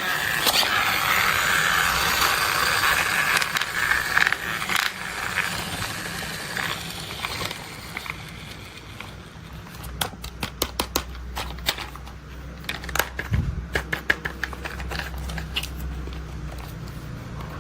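Toy construction vehicles being handled: a dense rattling clatter for the first few seconds, then a run of sharp clicks and knocks.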